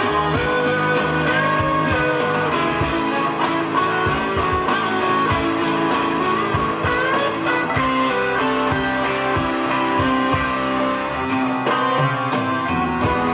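Blues-rock band music: electric guitars playing over bass and drums, loud and steady.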